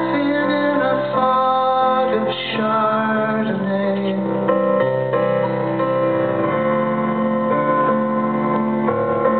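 Live band music led by a keyboard, with chords held for a second or two at a time.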